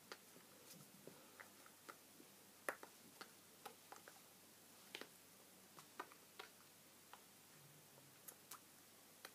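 Faint, irregular soft taps and clicks of hands striking each other and the body while signing, over near silence, the sharpest about two and a half seconds in.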